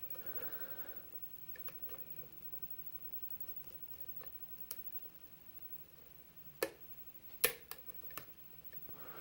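Faint, sparse metallic clicks of a lock pick and tension wrench working the pins of a security-pinned Schlage pin-tumbler lock, with two sharper clicks a little past the middle. The picker takes this for a pin that might have been overset.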